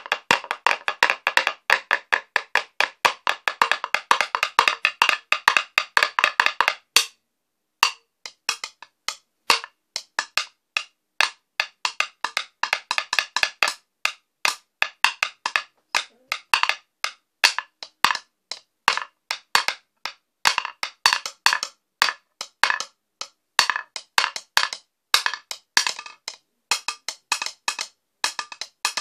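Two wooden sticks drumming on a carved wooden stool top, giving hard, clicky wooden strikes. A fast, dense roll runs for about seven seconds and stops briefly, then gives way to a looser, irregular rhythm of strikes that thickens again toward the end.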